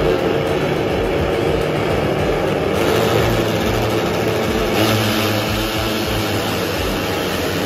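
A grid of Honda NSF250R race motorcycles revving hard on the start line, then pulling away together at the start of the race.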